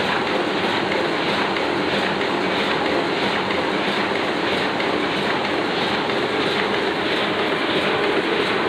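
Oliver 6 printing press running at its normal working pace, a steady rhythmic mechanical clatter.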